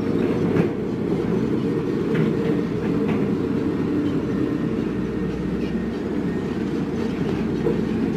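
Heavy diesel engine of construction equipment running steadily, with a few faint knocks over the rumble.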